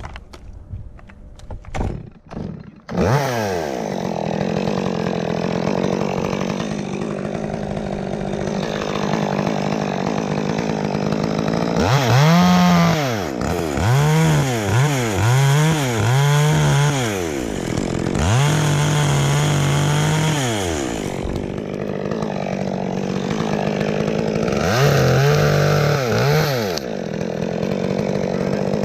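A few knocks, then a chainsaw comes up to speed about three seconds in. It runs at low speed, then is revved hard four times for a few seconds each, as when cutting through limbs.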